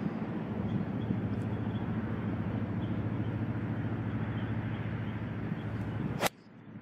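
Steady wind noise on the microphone with a low hum, then a single sharp click about six seconds in as a 2-iron strikes a golf ball off the turf; the background drops away suddenly after the strike.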